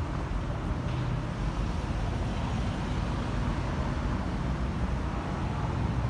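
Steady low rumble of city street traffic and idling vehicles, even throughout with no distinct events.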